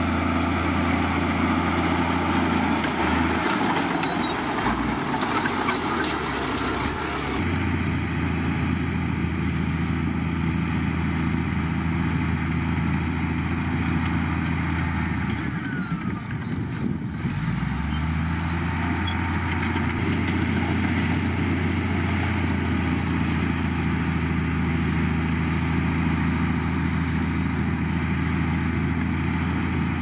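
Komatsu D58 crawler bulldozer's diesel engine running steadily under load while it pushes dirt, with a spell of metallic clattering a few seconds in. The engine note drops and shifts briefly about halfway through.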